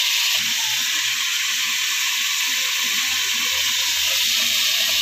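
Covered metal wok on a wood-fired stove giving a steady, unbroken hiss of steam and sizzling.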